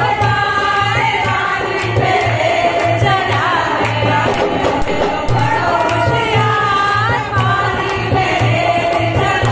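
A group of women singing a languriya folk song together, over a steady, repeating hand-drum beat and rhythmic clapping.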